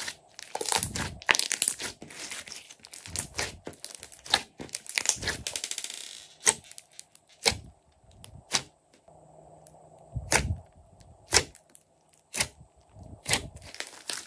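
Glossy slime being squeezed and kneaded by hand, giving wet squelches, crackles and sharp pops. A dense run of fast crackles comes about five seconds in, then single pops about once a second.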